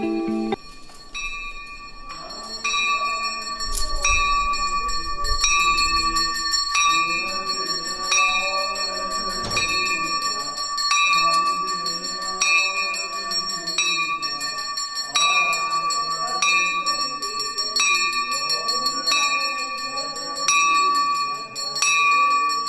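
A temple bell struck at a steady pace, about once every second and a half, each stroke ringing on. A group of voices sings along beneath it, the temple aarti.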